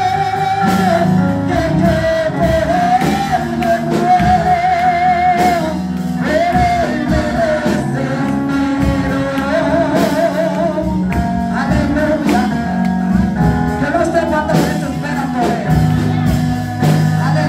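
A woman's amplified singing voice holding long, wavering sung lines of a worship song over a live band with keyboard and regular percussion hits.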